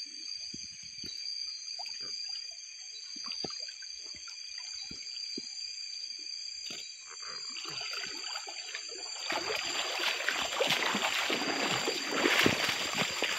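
Water trickling and dripping off a cast net as it is hauled in from a river, building into a heavier rush of streaming, splashing water from about nine seconds in as the net comes out of the water.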